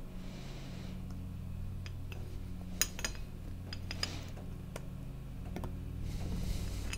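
Light metallic clicks and clinks as snap-ring pliers work a split ring onto a Snowdog bogie wheel axle. The sharpest click comes a little under three seconds in, with a few more scattered after it.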